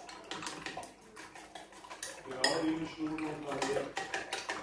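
Eggs being beaten in a ceramic bowl with chopsticks and a metal spoon: rapid, irregular clinking and tapping of the utensils against the bowl.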